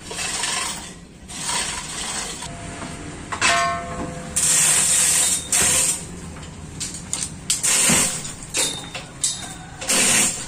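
Manual chain hoist and its load chains rattling and clicking in irregular bursts, with metal clanks, as a heavy diesel engine hangs and shifts on it.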